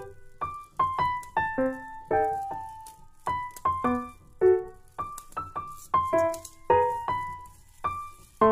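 Background music: a gentle piano melody of single struck notes, about two a second, each ringing and fading.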